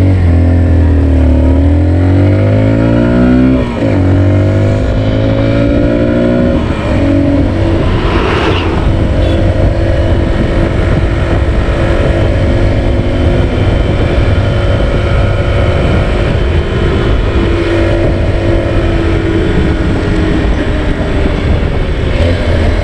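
Haojue NK150 dual-sport motorcycle engine, carrying two riders, accelerating hard. Its revs climb, fall at a gear change about three and a half seconds in, climb again, then settle to a steady cruising note from about seven seconds on.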